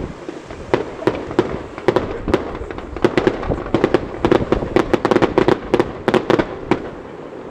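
Fireworks going off in a display: a rapid run of sharp cracks and bangs over a low rumble, thickest from about two seconds in until shortly before the end.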